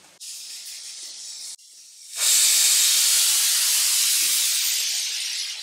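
Starchy water pouring out of a pot of boiled rice through its perforated strainer lid: a loud, steady hissing rush that starts about two seconds in, after a quieter hiss that cuts off.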